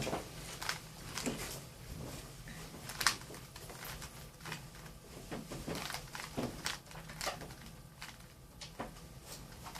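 Rubik's cube being turned quickly by hand: a run of irregular plastic clicks and clacks as the layers rotate, with one sharper clack about three seconds in.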